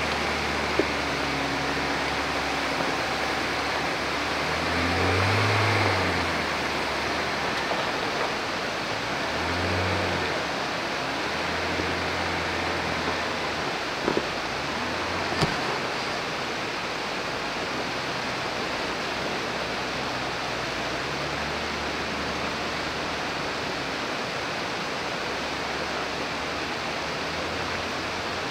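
Jeep Gladiator's engine pulling away in several short surges of throttle and growing fainter as it moves off, over a steady rush of flowing water. Two sharp knocks come near the middle.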